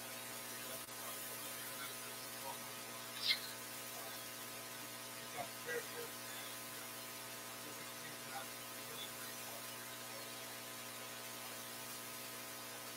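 Steady electrical mains hum with its evenly spaced overtones, with a few faint clicks and rustles over it, the loudest about three seconds in.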